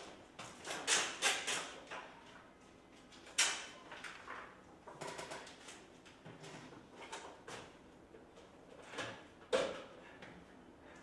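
Paper rustling and crinkling as sheets are handled and stuck to a wall, with scattered short scrapes and knocks, the sharpest about three and a half seconds in and about nine and a half seconds in.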